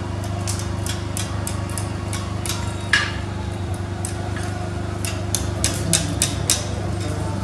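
Blacksmith's hammer striking red-hot iron on an anvil, light blows a few times a second as the bar end is curled into a scroll. One harder, ringing blow comes about three seconds in, and a quick run of harder blows after about five seconds, over a steady low hum.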